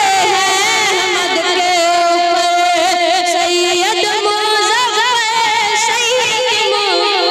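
A boy's voice singing a naat, drawing out long ornamented notes with a wavering vibrato.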